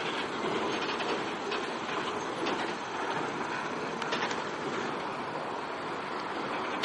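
Freight train cars rolling past, with a steady rumble of wheels on rail and irregular clicks and clanks as the wheels cross rail joints.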